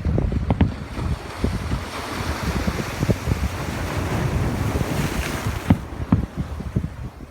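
Ocean waves breaking and washing up the shore, with wind buffeting the microphone. One wave's rush swells about two seconds in and dies away near six seconds.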